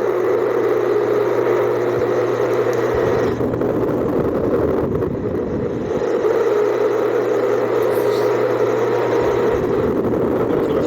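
Arno electric fan running steadily, a continuous whir of motor and blades.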